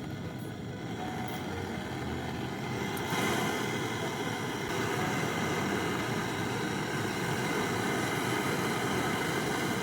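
Gas brazing torch burning with a steady hissing flame while the fridge's replacement cooling-coil joints are brazed. It grows somewhat louder about three seconds in.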